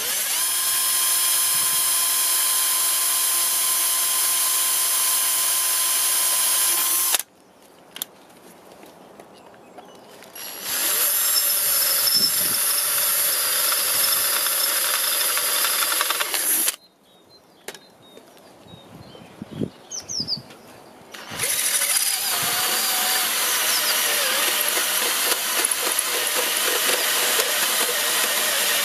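Electric drill boring holes through a thin steel tube with a twist bit: two runs of several seconds with a steady whine, each stopping suddenly, with a few light clicks in the pauses. In the last third the drill runs again, cutting through a steel plate with a hole saw.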